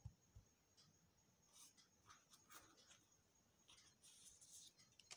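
Near silence, with faint rustling and brushing of paper and fabric under hands, a little louder about four seconds in.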